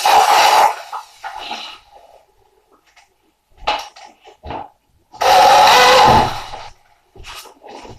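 A power tool running in short bursts, cutting in and out several times, with its longest, loudest run lasting about a second, about five seconds in.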